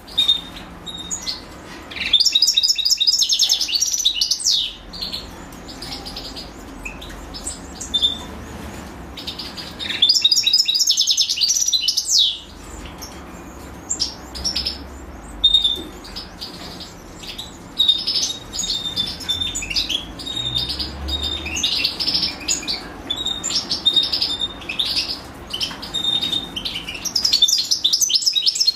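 European goldfinches chirping, the begging of nestlings being fed by their mother. Loud bursts of rapid high chirps come about 2, 10 and 27 seconds in, with short repeated high call notes between.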